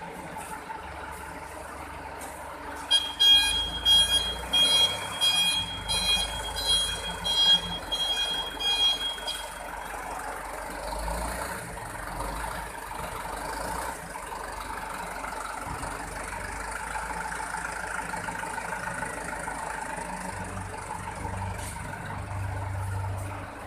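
A Mitsubishi Canter truck running, with a high-pitched electronic beeper sounding in quick pulses for about six seconds from about three seconds in. The engine sound grows a little louder near the end.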